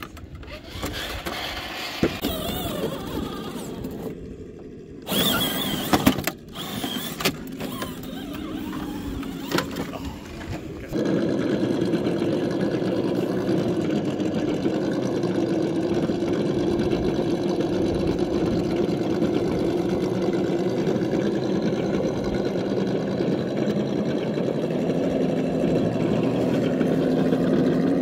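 Radio-controlled scale rock crawler running, a steady motor-and-gear whir as it climbs over rocks. The first part is uneven, with several sharp knocks; about eleven seconds in it changes to the steady whir.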